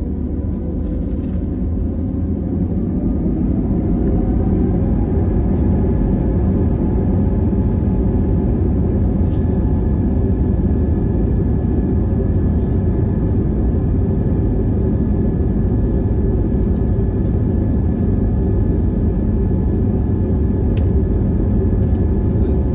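Airbus A320neo jet engines spooling up to takeoff thrust, heard from the cabin over the wing. A whine rises in pitch over the first few seconds and then holds steady over a loud rumble as the aircraft rolls down the runway.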